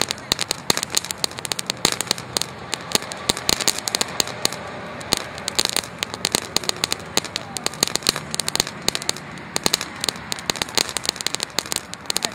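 FN104 Naughty Boys crackling ground fountain firework burning: a steady hiss from the fountain with dense, irregular crackling pops from its crackling stars.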